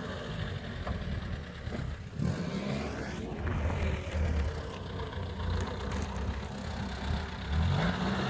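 GAZ-69 jeep's four-cylinder side-valve petrol engine idling, with a brief rev about two seconds in and another near the end.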